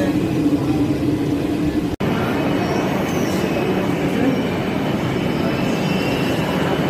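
Metro train running: a steady rail rumble with a faint high squeal, broken by a brief sudden gap about two seconds in.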